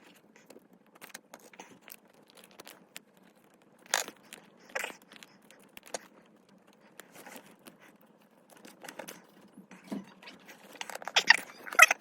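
Plastic minifigure packet rustling and tearing, with small plastic Lego pieces clicking and scraping as they are handled.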